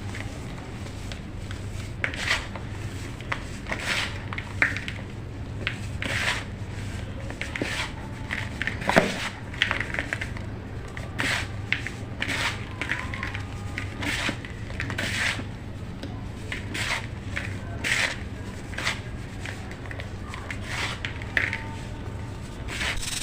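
Chunks of baking soda being crumbled and crushed: a run of short, irregular crunches, with a steady low hum underneath.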